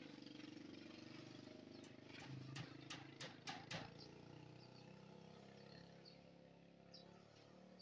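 Faint crackling of a plastic tarpaulin in a quick run of short sharp bursts as it is hauled up and draped over a wooden crossbar, over a low steady hum.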